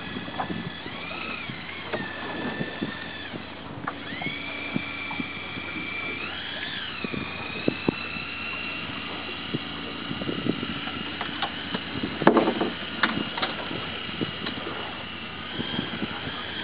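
Electric fishing reel's motor whining as it winds in line against a hooked red sea bream, its pitch sagging and recovering as the fish pulls, with a sharp dip a few seconds in. Scattered clicks and knocks of the reel and rod, loudest in a cluster past the middle.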